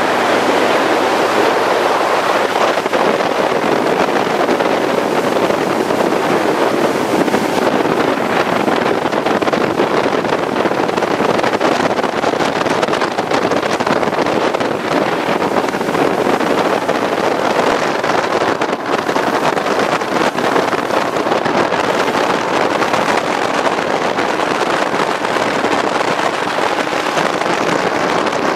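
Motorboat running steadily at speed, the engine's drone mixed with wind rushing over the microphone and water rushing past the hull.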